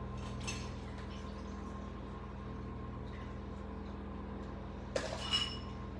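Uncooked instant cup noodles and unheated water being tipped and shaken out of a paper cup into a glass bowl: a faint rustle at the start, then a short knock with a light ringing about five seconds in. A steady low hum runs underneath.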